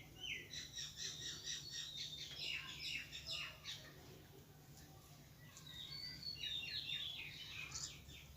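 Faint bird chirping in two runs of quick, high chirps, the second starting about six seconds in, over a steady low hum.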